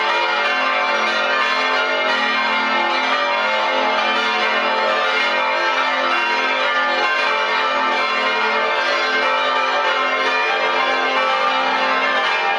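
Full peal of the Stiftskirche Herrenberg's twenty swinging church bells, heard from inside the belfry: many bells ringing at once at many pitches, their strikes overlapping in a dense, steady sound with no let-up.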